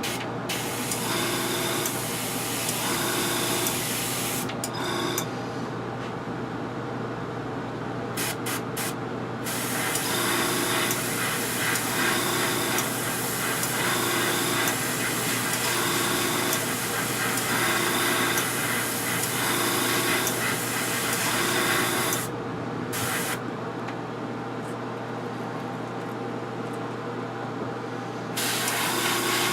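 Airbrush spraying paint in on-and-off bursts of hiss, with one long pass of about twelve seconds in the middle. Under it runs the steady hum of a small air compressor.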